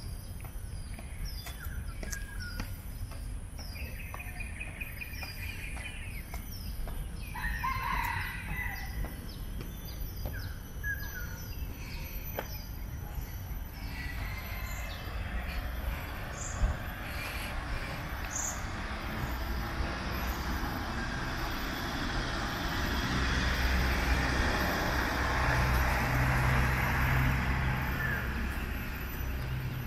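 A rooster crows twice in the first several seconds, among a bird's quick, repeated high chirps. In the second half a steady rushing noise with a low hum builds up and becomes the loudest sound.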